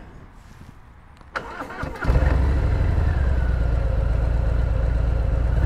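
2019 Harley-Davidson Fat Bob 114's Milwaukee-Eight V-twin, fitted with Rinehart 4.5-inch slip-on mufflers, cranked on the starter and firing about two seconds in, then settling into a steady throaty idle.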